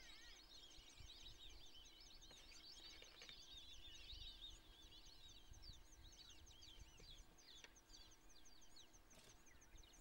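Faint background chorus of small birds: many quick, high-pitched chirps and twitters overlapping, with a rapid run of high ticks. The coucal itself is not calling.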